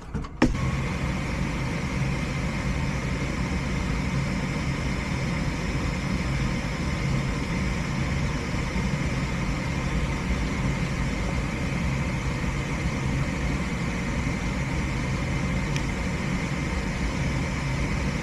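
Gas furnace's draft inducer motor starting about half a second in and then running as a steady hum, the first stage of the furnace's ignition sequence before the igniter comes on.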